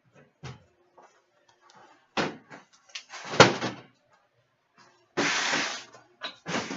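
A trading card box and its foil packs being handled and torn open: a series of sharp knocks and clatters, the loudest about halfway through, and a rough tearing sound of under a second near the end.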